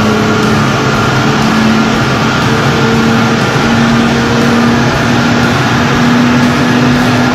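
Mercedes-AMG GLC43's twin-turbo V6 pulling under load on a chassis dyno through an Armytrix cat-back exhaust, its pitch climbing slowly and steadily as the revs rise.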